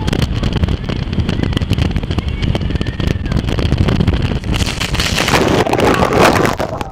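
Jet boat running fast with heavy wind buffeting on the microphone; about four and a half seconds in, a loud rush of water as the boat stops hard and throws a wall of spray over the riders.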